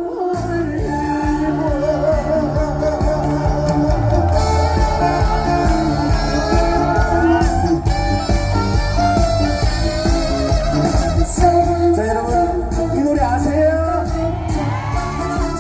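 Amplified concert music from a PA: a song with a steady beat and a wavering melody line.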